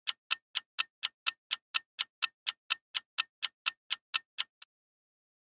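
Clock-ticking countdown sound effect: evenly spaced sharp ticks, about four a second, that stop near the end.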